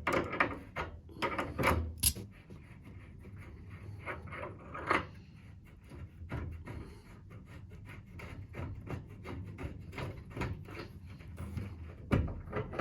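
Hand tools and brass fittings being handled as the nuts of an old thermostatic radiator valve are undone and the valve is taken off the pipework. Irregular clicks, taps and rubbing, with a few sharper knocks near the start, about two and five seconds in, and near the end.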